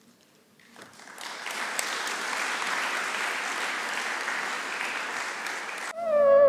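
Audience applause, starting about a second in and rising quickly to a steady level, then cut off near the end as outro music begins.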